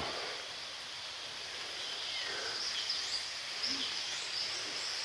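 Outdoor woodland ambience: a steady hiss with a few short bird chirps about two to four seconds in.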